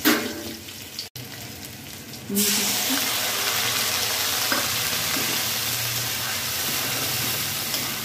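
Hot mustard oil sizzling with garlic and chillies; about two and a half seconds in, the sizzle suddenly grows loud and stays steady as ground bottle gourd leaf paste goes into the hot oil and is stirred with a spatula.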